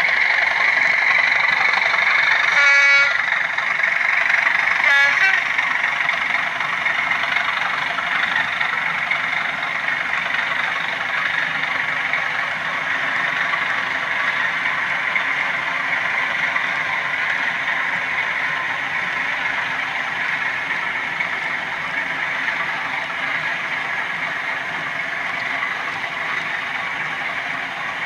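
OO gauge model freight train running past on the track: a steady rolling hiss and rumble of wheels and motor that slowly fades, with two short rattles about three and five seconds in.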